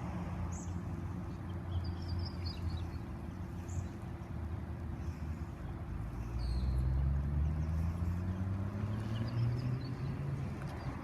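Oscar H-set electric train at the platform giving a low steady hum, with a tone that climbs in pitch during the second half. Small birds chirp briefly in the first few seconds.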